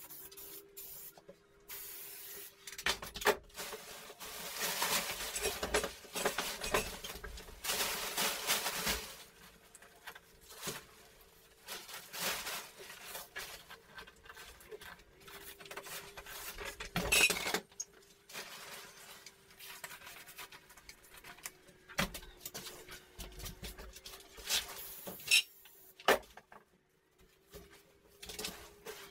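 Hand tools scraping and clinking during drywall work: several seconds of rasping strokes, then scattered sharp clicks and knocks, over a faint steady hum.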